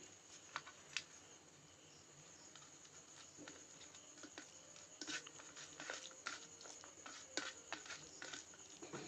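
A hand mixing rice and potato curry in a stainless steel bowl, quiet. Scattered small clicks and light crackles of fingers and grains against the steel come more often after the first few seconds.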